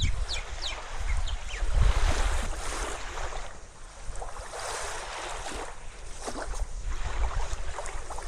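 Small waves washing on a beach, with wind gusting on the microphone. A few short high chirps sound near the start.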